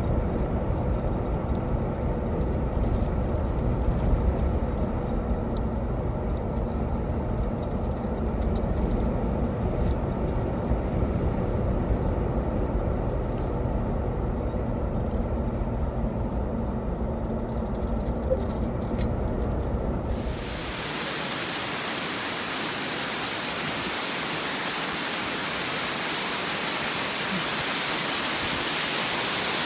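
Steady low rumble of road noise inside a moving car. About twenty seconds in it cuts abruptly to the steady rushing hiss of a waterfall.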